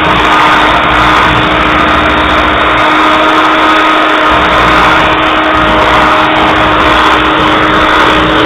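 Electric hand mixer running steadily with a constant hum, its beaters whipping a batter in a bowl.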